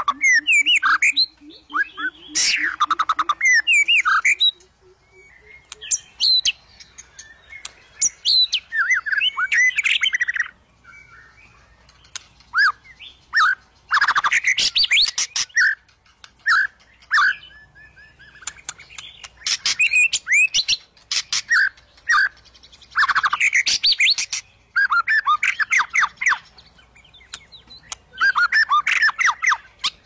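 White-rumped shama (murai batu) singing: rapid runs of varied whistles, chirps and harsh notes in repeated bursts of one to four seconds, with short pauses between.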